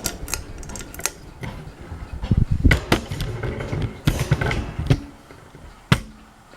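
A series of sharp clicks and knocks with stretches of low rumbling, typical of handling noise. A ceiling fan's motor hum is faint underneath.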